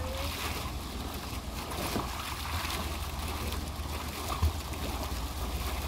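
Fountain jet splashing steadily into its basin as a Boston Terrier splashes through the spout, with low wind rumble on the microphone and a brief low bump about four and a half seconds in.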